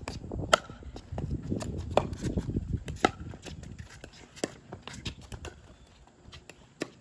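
Pickleball paddles striking a hard plastic ball back and forth in a doubles rally: sharp pops roughly once a second, the loudest about half a second in, with players' shoes shuffling on the hard court between shots.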